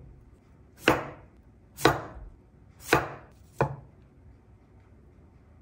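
Kitchen knife cutting through potatoes and striking a wooden cutting board: four sharp knocks about a second apart, the last one coming a little quicker, then nothing more.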